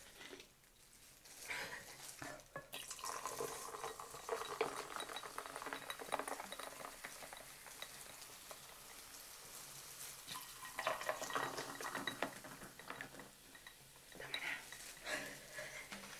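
Cola poured from a large plastic bottle into glasses, one with ice, splashing and fizzing. There are two pours, the second starting about ten seconds in, with the foam hissing between them.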